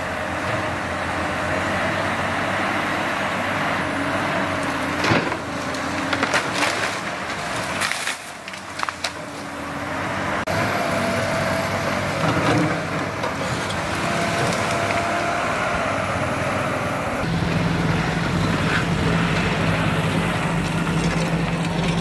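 Tracked hydraulic excavator's diesel engine running under load as it pushes down a tree, with wood cracking and splintering and branches crashing down about five to nine seconds in. The engine note deepens and holds steady near the end.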